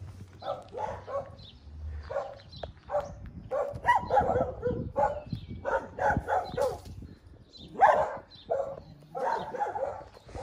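Dogs barking over and over, in quick irregular runs of short barks.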